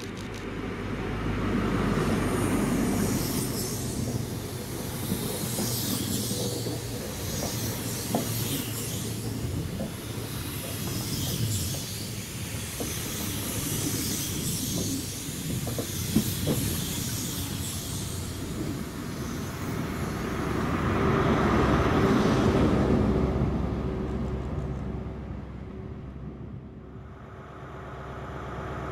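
InterCity 125 High Speed Train passing: the leading Class 43 diesel power car's engine swells past first, then the Mk3 coaches' wheels run by with scattered knocks over the rail joints, and the trailing power car's engine swells past about 22 seconds in before fading. Near the end a Class 43 power car is idling.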